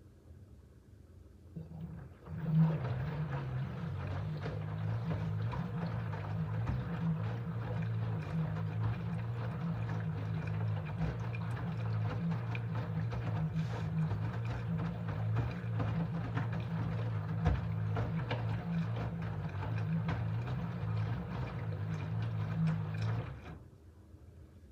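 LG F13D9NC front-loading washing machine tumbling its drum during the main wash: the direct-drive motor hums steadily while wet laundry sloshes and falls through the water. It starts about two seconds in with a thump and stops suddenly about a second before the end.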